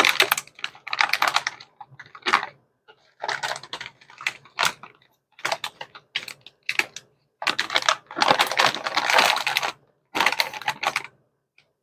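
Crinkly plastic bags of dried egg noodles rustling and crackling in irregular bursts as they are handled and turned over. The bursts stop near the end.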